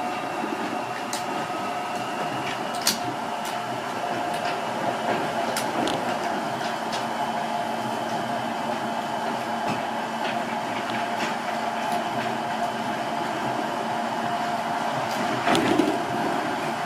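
Interior running noise of a Seibu 8500 series 'Leo Liner' rubber-tyred people-mover car moving along its concrete guideway: a steady rolling noise with a hum of a few held tones, scattered light clicks and rattles, and a louder burst of clatter about fifteen seconds in.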